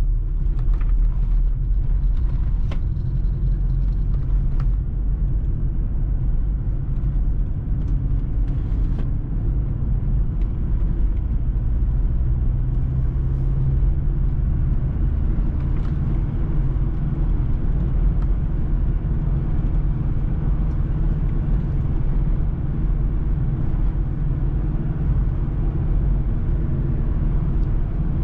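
Car cabin noise while driving steadily: a constant low rumble of engine and tyres on the road. A few light clicks come in the first few seconds.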